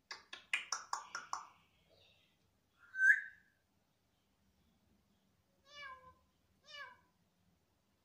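African grey parrot calling: a quick run of about eight short chattering notes, a single loud high whistle about three seconds in, then two short pitched calls near the end.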